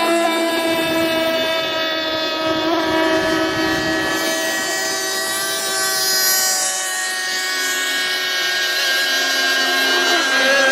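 Radio-controlled model boat motor running flat out, a steady high-pitched whine that shifts slightly in pitch near the end.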